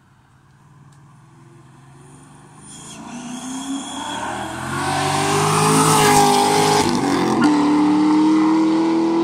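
Chevrolet Corvette C6 Z51 V8 accelerating toward the listener and driving past, its engine note rising in pitch and growing loud. About seven and a half seconds in the note breaks off briefly and comes back at a lower steady pitch.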